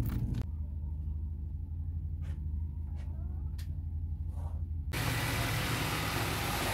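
A steady low rumble with a few light clicks and knocks.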